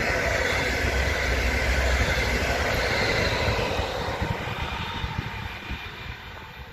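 Regional double-deck push-pull train, propelled by a DB Class 146 electric locomotive, passing close by: wheels on the rails with a whine. It is loudest about two seconds in, then fades as the train moves away.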